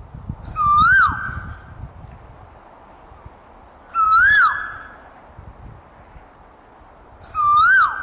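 Asian koel calling: three loud whistled calls about three and a half seconds apart, each note sliding up and then dropping sharply.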